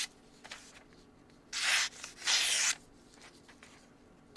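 Petrified Fish Mini Beluga folding knife with a 14C28N blade slicing through paper to test its edge: two short slicing strokes, about a second and a half and two seconds in.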